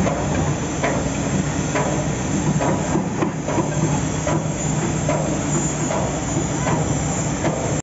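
Heavy diesel machinery running steadily during a tugboat undocking, a low engine drone under a constant hiss, with a few faint knocks now and then.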